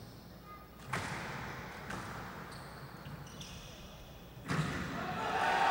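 A squash rally: the ball is struck and smacks off the court walls with sharp knocks about a second apart, and the players' shoes give short high squeaks on the court floor. Near the end, crowd noise swells as the point is won.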